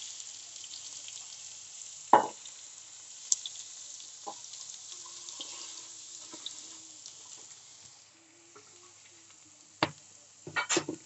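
Chopped garlic and cumin sizzling in hot oil in a wok, a steady hiss that quietens about eight seconds in. A few sharp knocks break through, about two seconds in, about four seconds in, and several together near the end.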